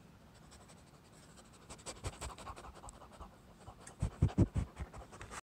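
A poodle moving right at the microphone: scratching and clicking sounds from about a second and a half in, then a quick run of loud low thumps about four seconds in, with panting.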